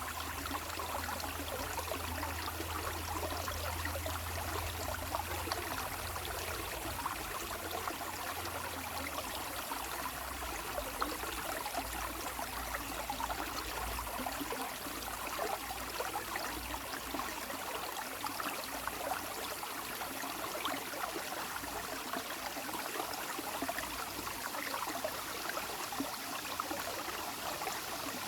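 Water flowing steadily in a stream, an even, continuous babbling.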